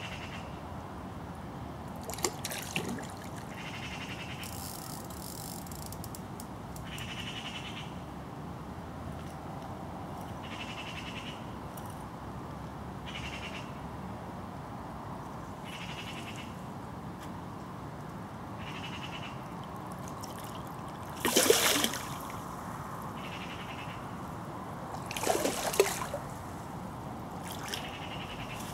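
River water running steadily, with a short high call repeating every two to three seconds. A few louder knocks or rustles come through, the loudest about two-thirds of the way in.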